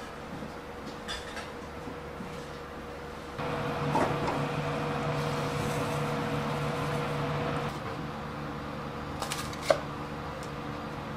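Quiet kitchen room tone, then a clay pot bubbling steadily at the boil for about four seconds. Near the end, a few light taps and one sharp knock of a knife on a wooden cutting board.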